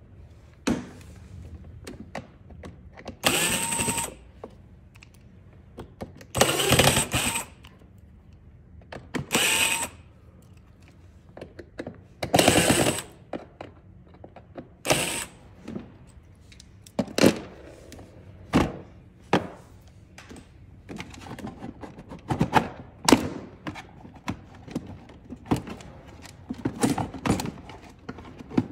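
Cordless drill driver run in five short bursts, taking the screws out of a plastic ride-on toy car's dashboard panel. After that come many short clicks and knocks of the hard plastic panel and parts being handled and pried loose.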